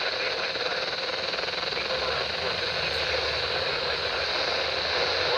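Steady radio static: an even hiss from a radio receiver, with no clear voice coming through.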